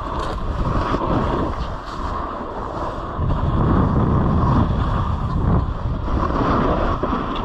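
Wind rushing over the microphone while a snowboard slides and scrapes across chopped-up, crusty snow, the noise swelling and easing with the riding.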